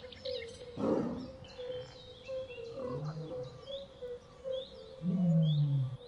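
A big cat gives three low growls: a short one about a second in, another around three seconds in, and the loudest, a longer falling growl near the end. Birds chirp over and over behind it.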